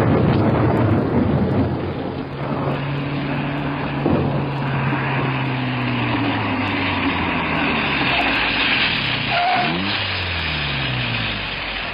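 Car engine running as the car drives, its pitch shifting a few times, with a brief rise and fall in engine note near the end, over a steady hiss of rain: a radio-drama sound effect.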